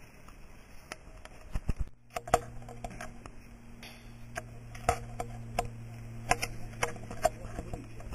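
Irregular light metallic clicks and clinks of caving gear as a caver descends on a rope with tackle bags, some ringing briefly. A steady low hum sets in about two seconds in.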